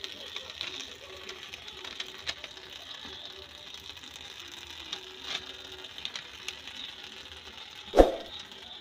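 Chayote shoots frying in a metal wok: a steady sizzling hiss with scattered small ticks and crackles. One heavy knock comes about eight seconds in.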